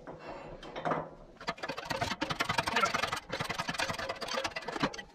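Hydraulic shop press being worked to push a press-fit sprocket flange off a motorcycle camshaft: a rapid metallic rattling clatter that starts about a second and a half in, after a few separate knocks.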